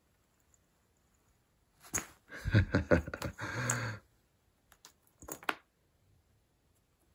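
A cat batting and pouncing on a small toy on a hard floor at the edge of a rug: a scuffle of sharp clicks and scrapes starting about two seconds in and lasting about two seconds, then a few more clicks a little later.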